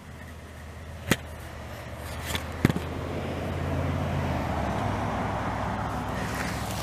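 A motor vehicle's engine running, growing louder over the first few seconds, then holding steady with a slight change in pitch. Two sharp clicks come about one and two and a half seconds in.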